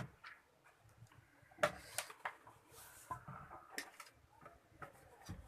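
Scattered light clicks and taps of small tools and electronic parts handled on a workbench while diodes are fitted into a TV power supply board, with a short hiss near the middle.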